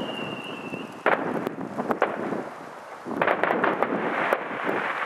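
Fireworks going off: a high whistle, falling slightly, ends about a second in and is followed by a sharp bang. Scattered pops follow, then a dense run of crackling about three seconds in.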